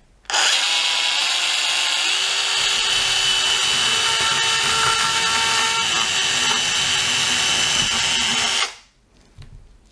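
Bosch EasyCut 12 cordless nanoblade saw running steadily for about eight seconds, its small chain blade cutting through a raw chicken drumstick and bone. The pitch steps up slightly about two seconds in, and the sound cuts off abruptly near the end.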